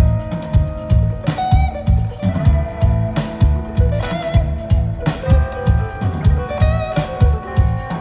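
Live rock band playing an instrumental passage: electric guitars holding and bending notes over bass guitar and a steady drum-kit beat.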